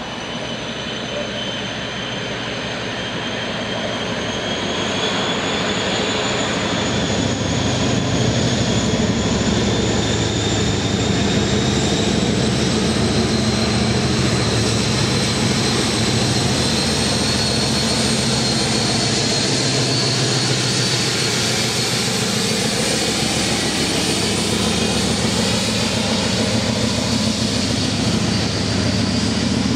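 Diesel freight locomotive's engine running, growing louder over the first several seconds and then holding steady, with a high whine that slowly rises in pitch throughout.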